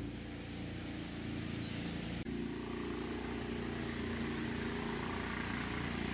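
An engine running steadily: a low, even hum that gets a little louder about two seconds in.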